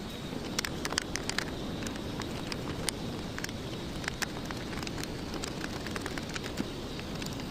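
Steady low rumble with many small, irregular clicks and taps scattered through it.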